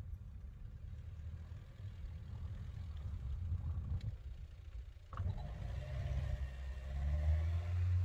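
Pickup truck's engine running as it drives through deep snow, first reversing, then pulling forward. About five seconds in the engine note starts up again after a short lull and grows louder as the truck moves off.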